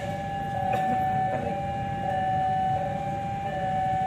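Railway level-crossing warning alarm sounding a two-tone signal, a higher and a lower tone taking turns a little faster than once a second, over a low rumble. It is the signal that the crossing is closed for an approaching or departing train.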